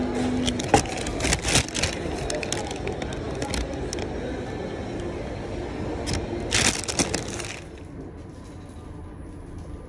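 Kraft-paper shopping bag and the paper wrapping inside it rustling and crinkling as they are handled, with sharp crackles. About three-quarters of the way through this gives way to a quieter, steady background hum.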